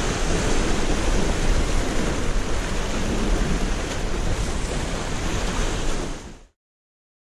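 Sea surf washing over shoreline rocks just below, with wind buffeting the microphone. The sound cuts off suddenly about six and a half seconds in.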